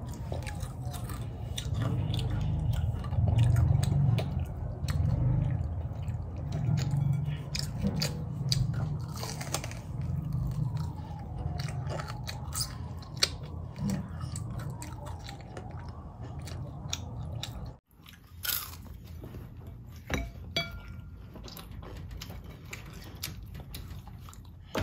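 A child biting and chewing crunchy fried dumplings, with crisp crackles between the chewing, briefly cut off about two-thirds of the way in.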